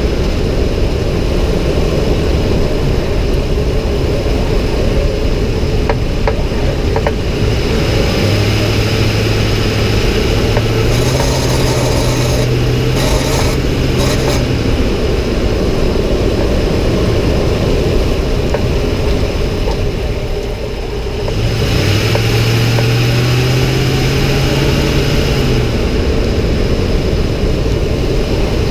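2006 Ford F-150 driving, with a low droning hum that comes in twice under throttle and rises in pitch each time before fading, over steady engine and road noise. The uploader hears this noise only on the accelerator, from about 1200 RPM, louder with more throttle and speed; its cause is unknown.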